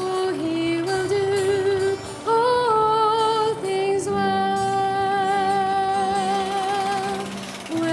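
Background music: a slow sung melody in a woman's voice, holding long wavering notes, the longest from about four to seven seconds in.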